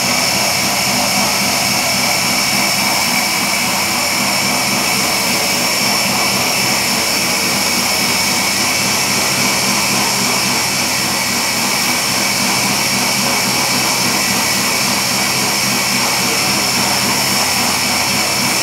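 A machine runs steadily and without a break: a constant mechanical rush with a high whine and a low hum beneath it, with no change in speed.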